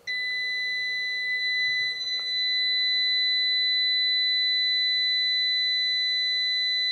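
Amprobe clamp meter's continuity beeper sounding one steady high-pitched tone, switching on suddenly as the test probes touch the subwoofer's voice-coil terminals. The tone marks a very low resistance across the probes: the two 4-ohm coils wired in parallel read just under 2 ohms.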